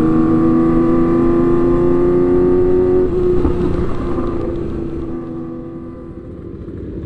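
Motorcycle engine running at road speed, its note holding steady and rising slightly, then weakening about three seconds in and fading down before picking up again near the end.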